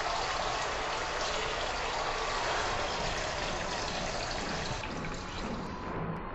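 Steady rush of running water, a dense even hiss that thins out about five seconds in.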